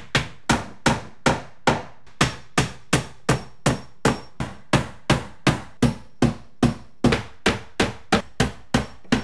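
Steel claw hammer driving finish nails through wooden door trim by hand, with quick, even blows at about three a second.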